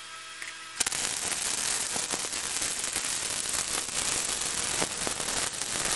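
Steady electrical hum, then about a second in a 90-amp flux-core wire welder strikes its arc on thick mild steel and keeps up a continuous spattering crackle.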